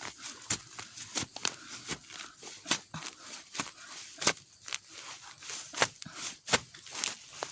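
Dry plant material crunching and snapping in irregular sharp cracks, two or three a second, as bamboo shoots are gathered in a bamboo clump.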